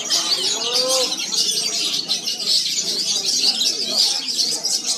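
Many caged songbirds singing at once: a dense, continuous chorus of high chirps and trills, with a few lower calls near the start.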